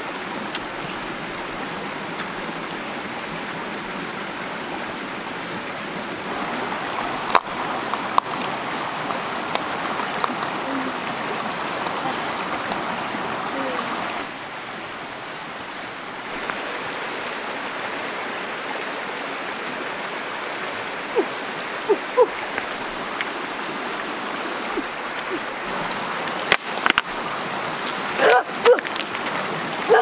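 Shallow stream running steadily over rocks, with a thin high steady tone through the first half. A few sharp knocks and splashes come near the end.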